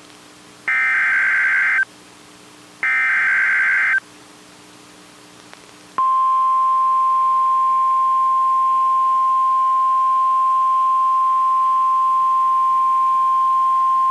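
NOAA Weather Radio alert signal: the last two of three SAME digital header bursts, each about a second of harsh, high, modem-like warbling with a second's gap between them. After about two seconds of pause comes the 1050 Hz warning alarm tone, a single steady high tone that starts about six seconds in and holds. Together they mark the start of a new warning broadcast.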